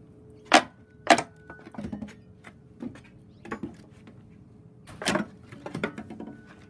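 A homemade pallet-breaking pry bar with rail-spike claws levering boards off a wooden pallet: a series of sharp knocks and wood cracks, the two loudest about half a second apart near the start and another loud one about five seconds in.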